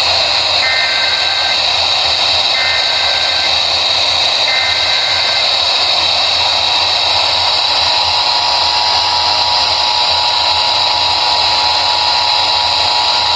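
Emergency Alert System broadcast received over radio: three short data bursts of the SAME header, each about a second long and about two seconds apart, then about six and a half seconds in the steady two-tone EAS attention signal begins and holds. Heavy hiss lies under it all.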